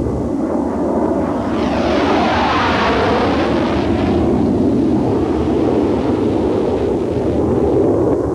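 Jet fighter engines passing: a steady rush of jet noise that swells into a sweeping whoosh about two to four seconds in, then carries on steadily.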